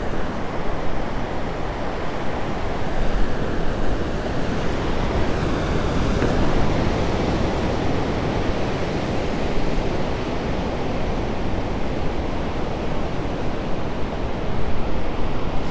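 Ocean surf washing steadily onto a beach, with wind rumbling on the microphone.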